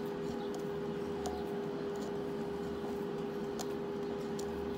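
A steady hum holding one pitch, with a few faint soft clicks from someone chewing and picking food apart with their fingers.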